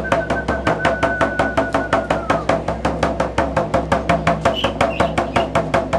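Music with a fast, even drum beat, about five strikes a second, over steady low notes; a held high tone fades out about two and a half seconds in.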